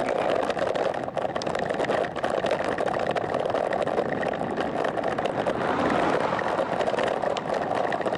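Steady rush of wind and tyre noise on the microphone of a camera riding on a road bicycle at about 18 km/h.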